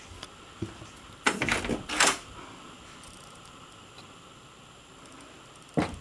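An interior door of a travel trailer being opened: a cluster of knocks and rattles about a second in, another clatter around two seconds, and a single knock near the end.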